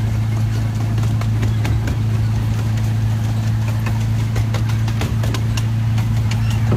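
Ride-on miniature train running along the track: a steady engine hum from the locomotive, with irregular clicking and clacking from the wheels on the rails.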